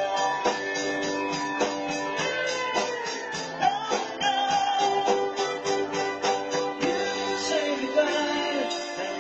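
Live rock band playing through a PA: keyboard, electric guitar and a steady drum beat, with singing.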